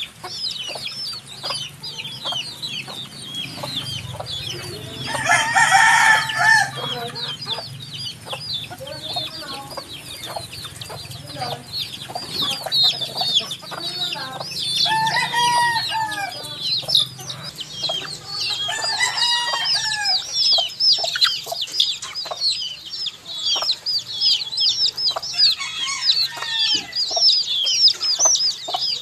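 Baby chicks peeping non-stop, a dense stream of short, high, thin peeps several a second. Louder, lower adult chicken calls break in about five seconds in, again around fifteen seconds and around nineteen seconds.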